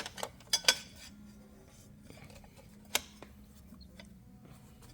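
Light metallic clinks of small motorcycle parts being handled: several in the first second and one more about three seconds in.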